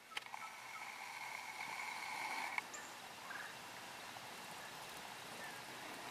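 Faint outdoor ambience. A steady high trill runs for the first two and a half seconds and cuts off abruptly, then there is soft background hiss with a few faint chirps.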